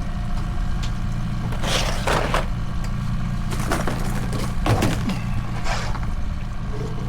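Boat motor running steadily at trolling speed, with four short bursts of splashing as a big walleye thrashes at the surface while being netted.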